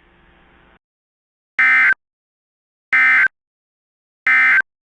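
Three short bursts of Emergency Alert System SAME data tones, about a third of a second each and evenly spaced about 1.3 s apart: the end-of-message code that closes an EAS alert.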